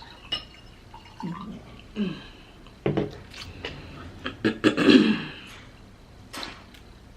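Close-up wet eating sounds of a person chewing buttered lobster, with scattered lip smacks and clicks; the loudest wet burst comes about five seconds in.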